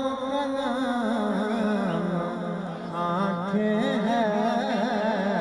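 A man singing a line of an Urdu ghazal in tarannum, a slow chanted melody. He holds long notes with a wavering pitch that step down between one and two seconds in, then curl in short ornaments around the lower note.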